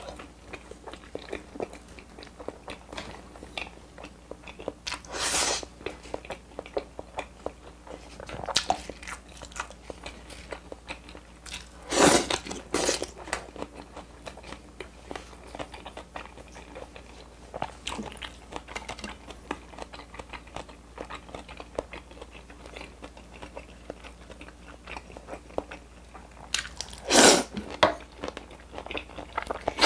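Close-miked eating sounds: a man chewing and biting through cheese-filled hamburger steak, kimchi and carbonara noodles, with a steady run of small wet mouth clicks. A few louder bites stand out, about five seconds in, around twelve seconds, and near the end.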